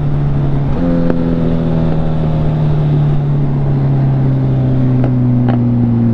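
Suzuki Hayabusa's inline-four engine running at a steady pitch, stepping up slightly about a second in and then easing gradually lower.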